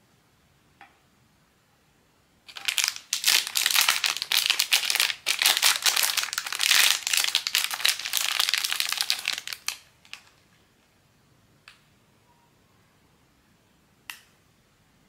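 Crinkly blind-bag packaging being handled: a dense crinkling that lasts about seven seconds and stops abruptly, then a few single small clicks.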